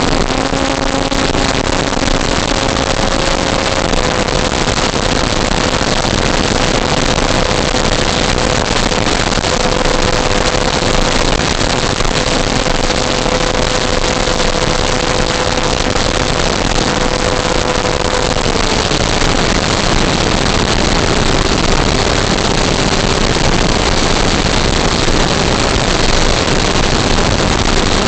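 Electric motor and propeller of a 1:6 scale Cessna 182 RC plane running at a steady throttle: a held whine over a heavy rush of air. The whine drops a little in pitch about two-thirds of the way through as the throttle is eased back.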